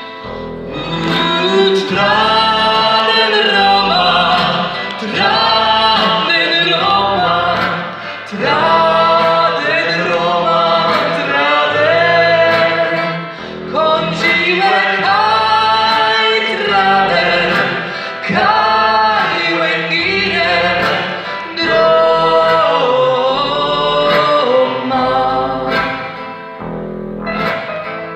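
A woman singing a song in Polish live, accompanied by piano and keyboards, phrase after phrase with short breaths between them.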